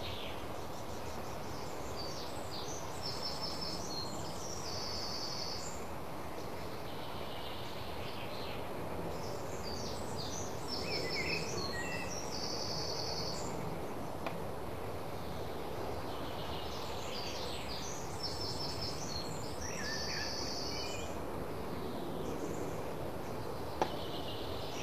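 Recorded birdsong laid over a steady hiss, the same short phrase of chirps and trills repeating about every seven to eight seconds as a loop. This is the birdsong track that replaces the live audio when the conversation is censored.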